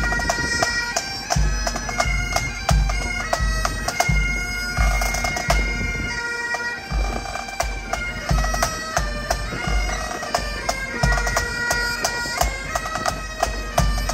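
Bagpipes playing a tune over their steady drone, with a low thud about once a second and sharp clicks beneath the pipes.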